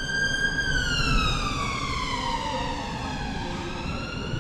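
Emergency vehicle siren wailing. Its tone holds high, then glides slowly down over about three seconds and starts to rise again near the end, over a low background rumble.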